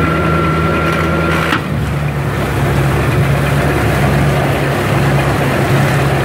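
5.7L MerCruiser V8 running at a fast idle, shifted into gear about a second and a half in: a steady whine cuts off, the revs sag slightly under load, and the propeller churns the water in the test barrel with a loud rushing, splashing noise over the engine.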